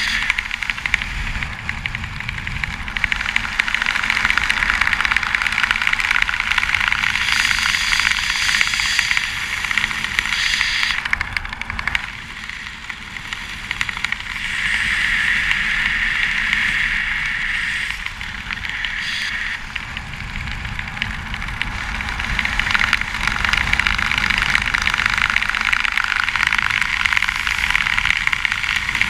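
Wind rushing over the microphone of a skydiver's camera in the air, a steady roar that eases off briefly twice and builds again.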